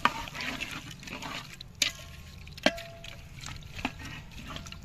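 A long metal spatula stirring meat, sliced onions and water in a large metal pot, the liquid sloshing and swirling. Three sharp clinks of the spatula against the pot, the middle one ringing briefly.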